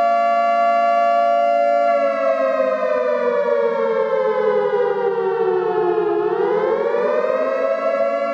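Warning siren sounding a steady chord of tones, then gliding slowly down in pitch from about two seconds in and rising back up near the end, the wail of an air-raid style warning siren.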